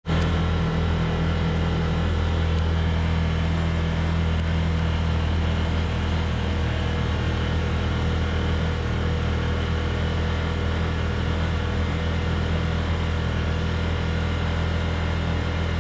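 Side-by-side UTV's engine running at a steady speed while driving, heard from a camera mounted on the machine, with a steady rush of road and wind noise.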